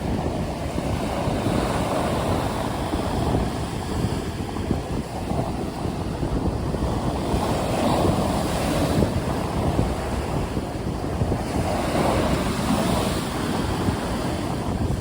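Stormy sea: waves washing in a continuous rush, swelling and easing every few seconds, with wind blowing across the microphone.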